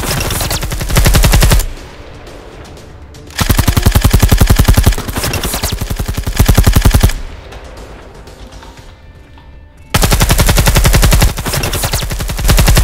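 Automatic machine-gun fire sound effect in three long bursts of rapid, evenly spaced shots: one ending about a second and a half in, one from about three and a half to seven seconds, and one starting about ten seconds in.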